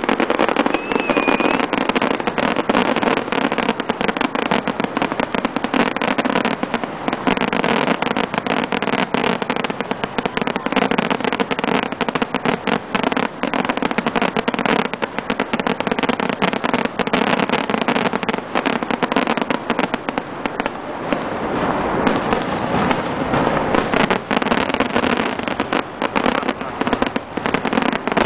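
Aerial firework shells bursting in a rapid, continuous barrage of bangs.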